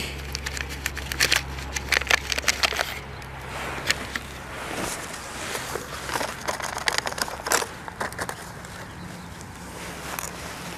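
Hands digging and scraping in loose garden soil while a flexible plastic seedling cell tray is squeezed and handled: a string of small crackles, rustles and scrapes.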